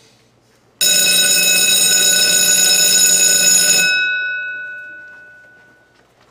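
Electric school bell ringing. It starts suddenly about a second in, rings steadily for about three seconds, then stops, and its tones ring out and fade over the next two seconds.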